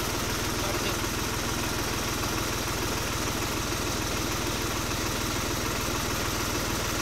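Tractor engine idling steadily with an even, fast low throb.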